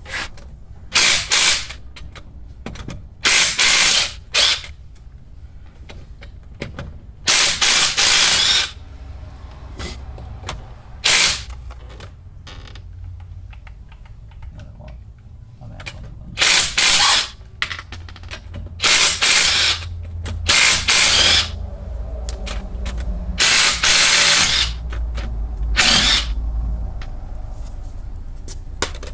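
Power wrench run in about ten short bursts, each half a second to a second and a half long, over a low steady rumble.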